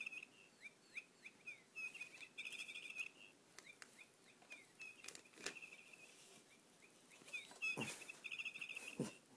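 High electronic bird chirps and trills from a feathered-bird cat toy, repeating at one fixed pitch in short bursts as the cat bats and grabs it. A few soft knocks of the toy against the floor come between the bursts, the loudest near the end.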